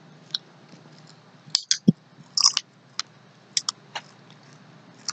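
Someone biting and chewing a Pringles potato crisp: a scatter of short, sharp crunches at an uneven pace, most of them between about one and a half and four seconds in.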